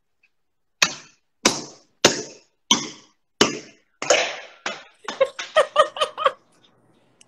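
A pan slammed down again and again to smash chocolate and almonds: about six heavy strikes a little over half a second apart. A burst of laughter follows near the end.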